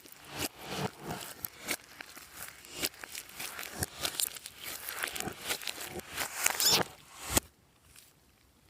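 Glossy slime being squished and mixed by hand: a run of irregular clicks and pops that stops suddenly about seven seconds in.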